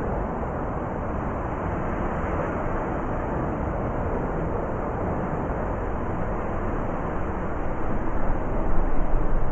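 Blizzard wind blowing steadily, deep and low, turning gustier near the end.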